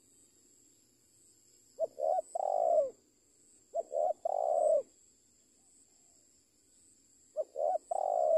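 Spotted dove cooing three times, a few seconds apart. Each call is two short notes followed by a longer rolling coo.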